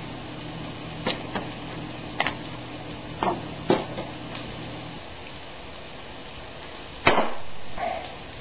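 Metal spoon scooping and tapping between a plastic tub and a stainless steel mixing bowl: about six sharp clinks spread over the first half, then one loud clank with a short ring near the end. A low steady hum stops about halfway through.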